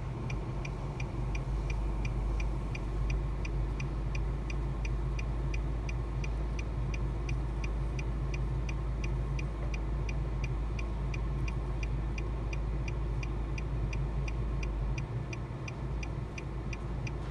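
Rapid, even ticking, about four ticks a second, over a low steady hum.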